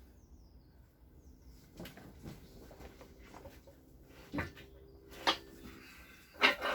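A few scattered knocks and clinks of parts being handled, the loudest clatter near the end, over a faint steady hum.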